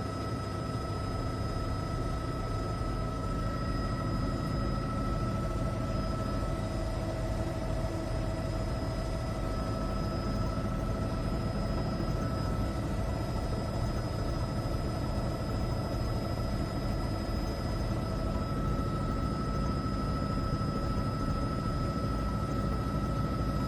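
Steady drone of a helicopter heard from inside its cabin, with a constant high-pitched whine over it.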